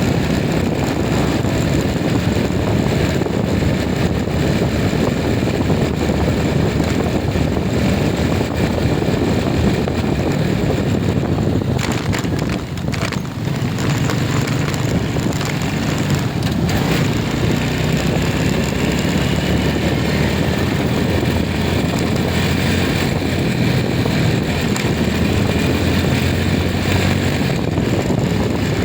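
Steady vehicle engine and road noise of a ride along a road, with a brief drop in level about twelve seconds in.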